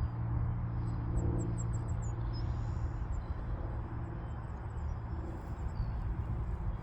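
Steady low hum of an idling engine, with a quick run of short high chirps about a second in and a few more around three seconds.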